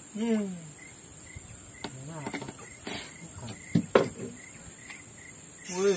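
Insects buzzing steadily at a high pitch, with a faint chirp repeating about every half second. A short falling call comes near the start, and two sharp knocks, the loudest sounds, come close together a little before the midpoint's end, about four seconds in.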